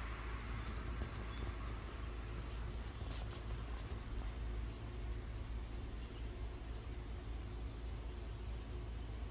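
A cricket chirping steadily, about three short high chirps a second, over a low steady rumble.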